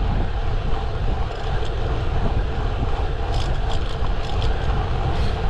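Wind rushing over the microphone of a camera riding on a road bike at speed: a steady, loud low rumble, with a handful of short clicks about three and a half to four and a half seconds in.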